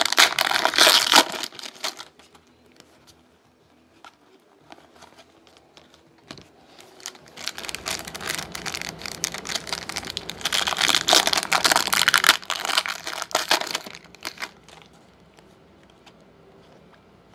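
Foil wrapper of a Topps Platinum football card pack crinkling as the pack is torn open and the cards are pulled out. It comes in two bouts: a short one at the start, and a longer one from about eight to fourteen seconds in.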